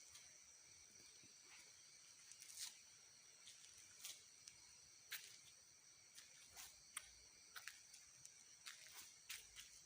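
Faint, steady chirring of insects such as crickets, in several high-pitched bands, with scattered small clicks and rustles throughout.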